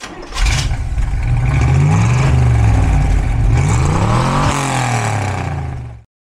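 Car engine revving, its pitch rising and falling several times, the highest rev peaking about four and a half seconds in, then cutting off suddenly near the end.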